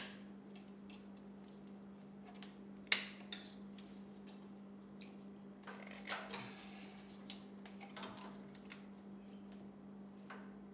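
Pliers and metal hose clamps clicking and clinking against the tractor's fuel-line fittings as the fuel lines are worked off the fuel filter by hand. One sharp metallic click about three seconds in is the loudest, followed by scattered lighter clicks.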